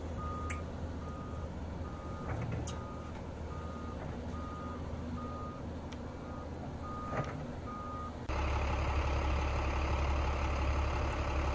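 A Doosan DX300 excavator's diesel engine runs low and steady while its warning alarm beeps about once a second, with a few sharp metal clanks. About eight seconds in, the beeping stops suddenly and a louder steady low rumble takes over.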